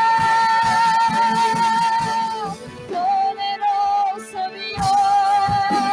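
Live worship music: a singer holds long, wavering notes, sliding down to a lower held note about halfway through, over instrumental accompaniment.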